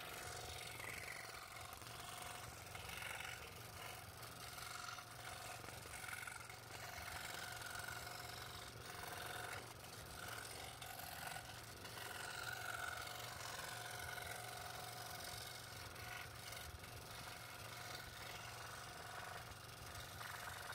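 Scroll saw running with its fine blade cutting through a thin wooden workpiece: a steady motor hum under a cutting sound that rises and falls as the piece is fed and turned along the pattern.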